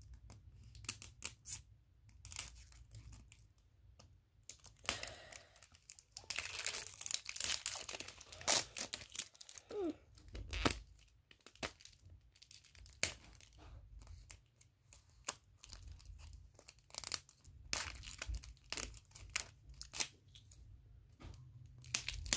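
Wrapping on an L.O.L. Surprise ball being picked at, peeled and torn by hand: irregular crinkling and tearing with scattered small clicks, busiest about six to nine seconds in.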